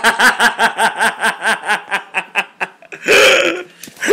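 A woman laughing in quick, even bursts, about five a second, with a louder, harsher outburst of about half a second some three seconds in.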